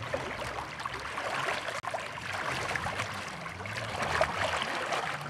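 Shallow sea water lapping and splashing lightly around swimmers, a run of small irregular splashes over a steady wash.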